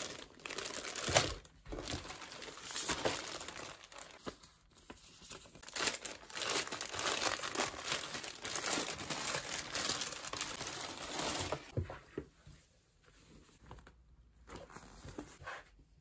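Thin clear plastic garment bag crinkling and rustling as hands handle and open it around a pair of jeans. The crinkling is fairly continuous for about twelve seconds, then thins to quieter, scattered rustles.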